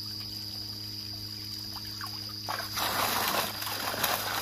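Water trickling, with a loud splash about two and a half seconds in that lasts about a second, over a steady hum.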